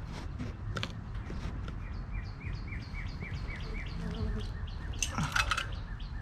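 A bird calling in a quick, even series of short chirps over a steady low background hum, with a brief clatter near the end.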